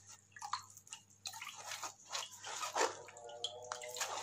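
Hand rubbing and squeezing wet, soaked almond and poppy-seed paste against a metal strainer: irregular squelching strokes, with liquid dripping into the pot below. A faint steady tone joins in the background a little under three seconds in.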